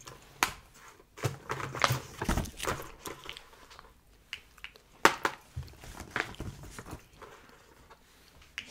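Small objects and papers being handled on a tray: scattered taps, clicks and short rustles.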